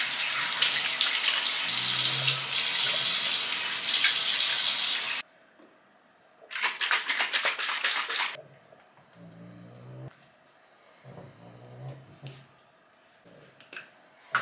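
Bathroom tap running into a basin for about five seconds, then cut off suddenly; about a second later comes a shorter burst of water splashing.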